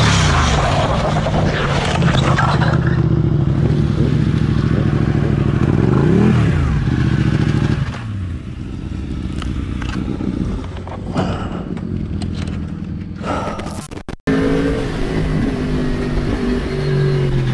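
Ducati sport bike going down on wet asphalt: scraping and clatter at the start over its still-running engine, which drops off about eight seconds in. After a cut near the end, another sport motorcycle's engine running as it rides.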